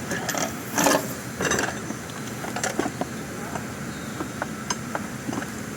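Light metallic clinks and knocks of tools and brake parts being handled, scattered irregularly over a steady background noise, with a louder clatter about a second in.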